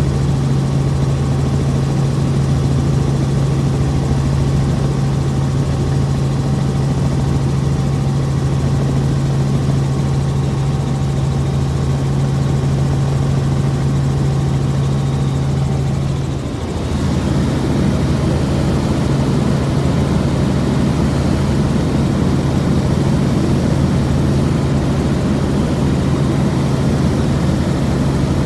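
Helicopter in flight: a steady, loud low drone of engine and rotor. About sixteen seconds in the sound dips briefly and the fainter higher tones drop out, then the drone carries on.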